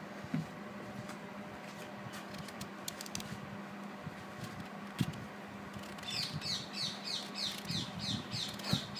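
Faint clicks and scrapes from peeling raw mangoes over a steady low hum. About six seconds in, a bird starts calling: a quick run of short, falling, high chirps, about three a second.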